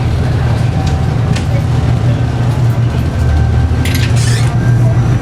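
Steady low drone of a ferry's engines heard inside the passenger cabin, with a brief hiss about four seconds in.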